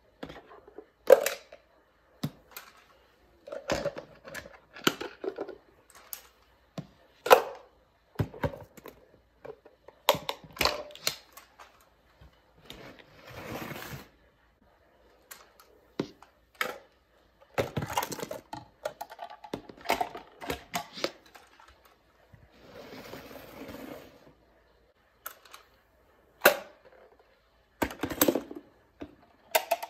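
Small plastic toy wheelie bins handled with a grabber arm: a string of sharp plastic clacks and knocks as the bins are gripped, lifted, tipped and set down. Twice, for about a second or so, a rattling rustle as trash is shaken out of a mini bin into the bucket.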